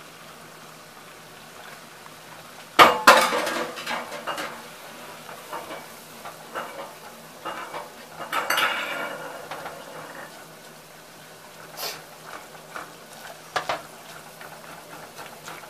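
A whisk scraping and clinking against a saucepan as flour is stirred into sizzling melted butter to make a roux. The loudest clatter comes about three seconds in, with another burst of stirring around eight seconds in and a few sharp clinks near the end.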